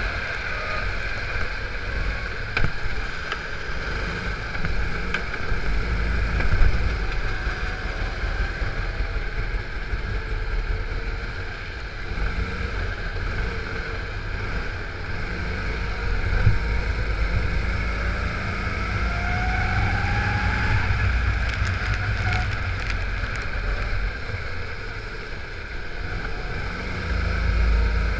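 Go-kart engine running at racing speed, its pitch rising and falling as it accelerates out of corners and lifts into them, over a low rumble of wind on the microphone.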